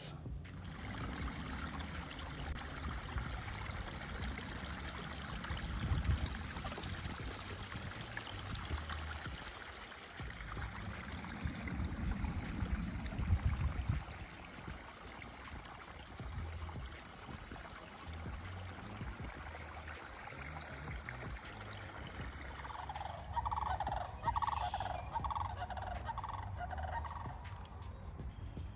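Outdoor meadow ambience with uneven low wind rumbles on the microphone. From about 23 seconds in, a bird's rapid gobbling calls come in short repeated runs.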